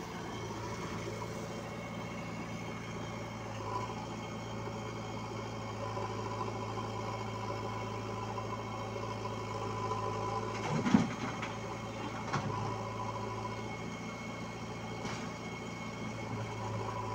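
Diesel engines of a JCB 3DX backhoe loader and a tractor running steadily while the backhoe loads soil into the tractor's trolley. A sharp thump about eleven seconds in is the loudest sound, followed by two lighter knocks.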